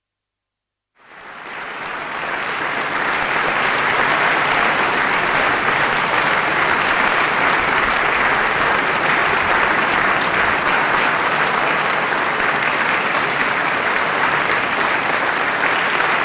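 Concert audience applauding, starting about a second in, swelling over the next few seconds and then holding steady.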